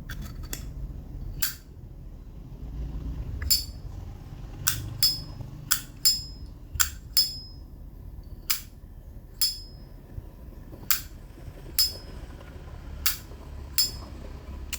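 1967 Zippo lighter's hinged metal lid being clicked open and snapped shut again and again, about fifteen sharp metallic clinks at uneven spacing, each with a brief ring.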